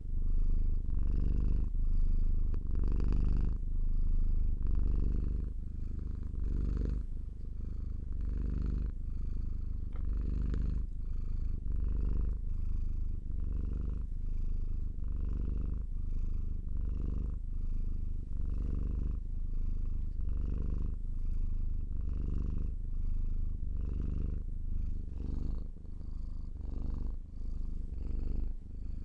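Domestic cat purring steadily, the purr swelling and easing about once a second with each breath in and out.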